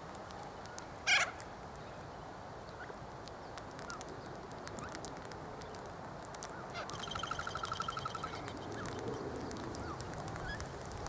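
Birds calling: one short, harsh call about a second in, then a fast rattling trill lasting about a second and a half near seven seconds in, with faint chirps scattered throughout.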